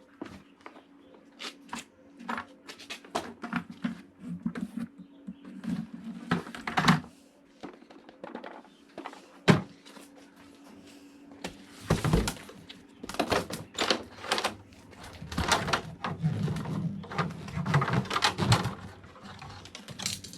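Irregular knocks and clicks of objects being handled and set down, with denser stretches of rustling and knocking about twelve seconds in and again near the end.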